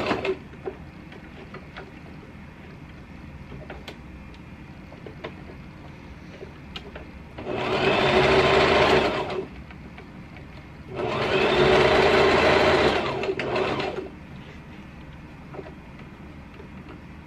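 Electric sewing machine stitching fabric in short runs: one run stops right at the start, then two more of about two and three seconds come in the middle, with quiet clicks between them.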